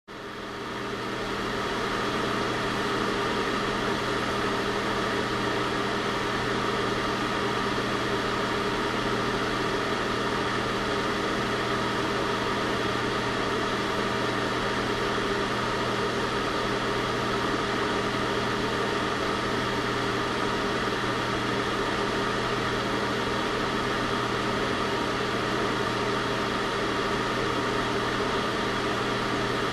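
Heater running steadily: a low electrical hum under an even rushing hiss, fading in over the first couple of seconds and then holding unchanged.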